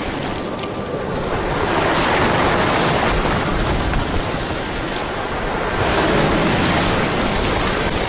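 Rough Black Sea surf before a storm: big waves breaking and washing up the beach, swelling about two seconds in and again near six seconds.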